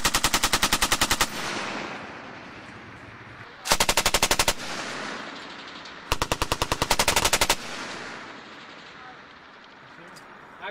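M240 7.62 mm belt-fed machine gun firing three short bursts of rapid fire, each about a second long, spaced a few seconds apart, with each burst trailing off in echo.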